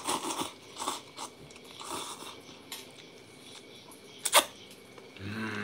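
A person slurping and chewing instant cup noodles eaten with chopsticks, in short noisy bursts, with one sharp click about four seconds in. Near the end comes a low hummed "mm" of enjoyment.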